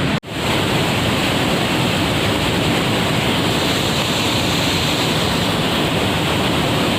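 Waterfall rushing: a loud, steady wash of falling water with no pauses, broken only by a split-second gap right at the start.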